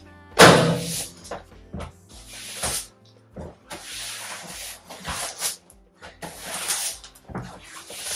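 A broom sweeping sawdust off the floor, making a series of brushing swishes, the loudest about half a second in, over quiet background music.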